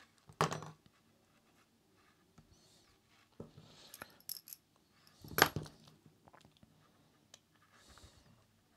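Small clicks and knocks of tiny metal and plastic motor parts and a screwdriver being handled and set down on a cutting mat, with a louder knock about half a second in and the loudest about five seconds in.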